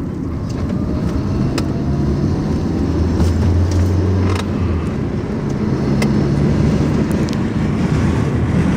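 A car engine running at low speed, with tyre and road noise over a rough, patched road. Its pitch shifts a little, and a few sharp knocks come through, about a second and a half in, around four and a half seconds in, and at six seconds.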